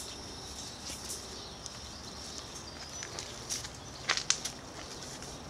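Quiet outdoor ambience with a faint steady hiss, broken by two sharp clicks in quick succession a little after four seconds in.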